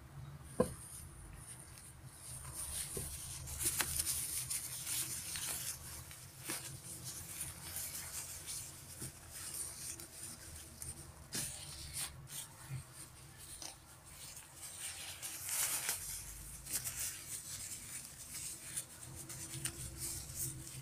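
Nylon shell fabric of a thin down jacket rustling and crinkling in irregular bursts as it is handled. There is a sharp click just after the start.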